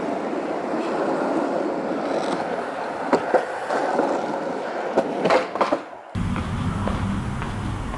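Longboard wheels rolling over asphalt: a steady rolling rumble with a few sharp clicks around three and five seconds in. About six seconds in it cuts abruptly to a low rumble.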